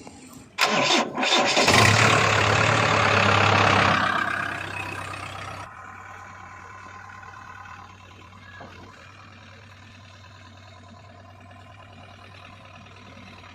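Diesel engine cranking and catching about half a second in, running loud for a few seconds, then dropping to a quieter steady idle.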